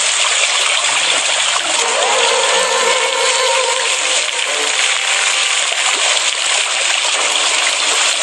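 Steady rush of flowing water, like a stream or small waterfall, running evenly.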